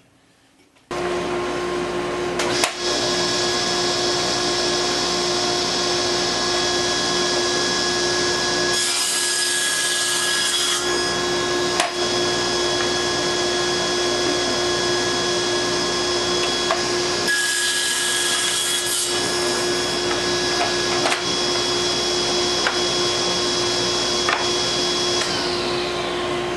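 Table saw running steadily with a 7¼-inch, 24-tooth thin-kerf circular saw blade, crosscutting pallet-wood boards. It turns harsher and hissier for about two seconds twice, about nine and about seventeen seconds in, as the blade goes through the wood.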